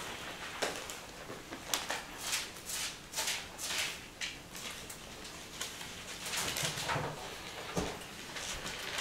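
Soft rustling and handling noises as a Bible is picked up and its pages leafed through, with a run of quick brushing strokes about two seconds in.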